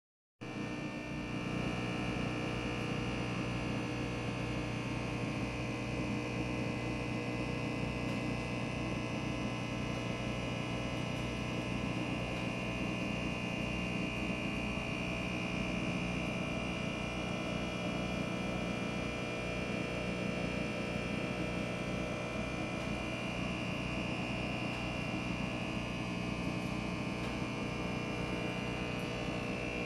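A small engine running steadily, with a low rhythmic throb of about two to three pulses a second under a constant hum; it starts about half a second in.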